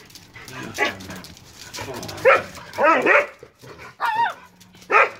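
Dogs whining and yelping in excited greeting: about five short high calls whose pitch bends and falls.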